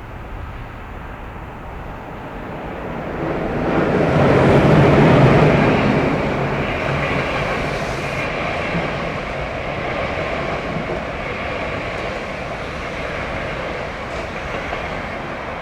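A train passing on the line: its noise builds to a peak about four to six seconds in, then carries on steadily as it runs by.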